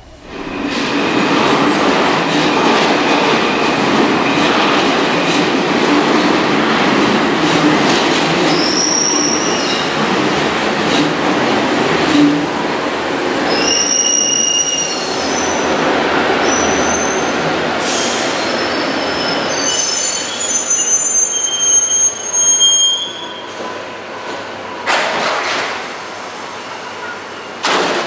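Paris Métro line 5 train running in along a curved platform: a loud steady rumble with several short high-pitched wheel squeals. It grows quieter as the train comes to a stop near the end.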